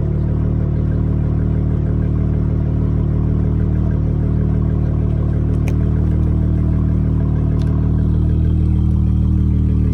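Dodge Charger SXT's V6 idling steadily through Flowmaster Super 10 mufflers, a low even exhaust note that grows slightly louder near the end.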